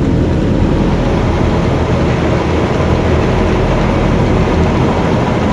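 Aronson 3000 lb welding positioner's table-rotation drive motor and gearing running steadily with a low hum, turned up to a fast speed on its variable-speed dial.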